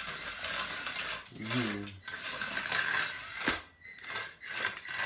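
Small robot car's electric drive motors and gears running with a steady high whine as it drives across a tile floor. A short voice sound comes about a second and a half in, and a sharp click about three and a half seconds in.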